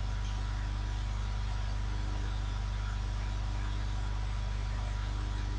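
Steady low hum with an even hiss underneath and a faint thin tone, unchanging throughout: the background noise of the recording microphone and room, with no other sound.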